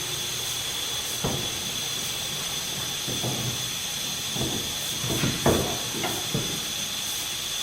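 Steady hiss with a thin high whine, broken by a few scattered knocks and clunks as a car hood is handled and set onto its hinges, two of them close together about five and a half seconds in.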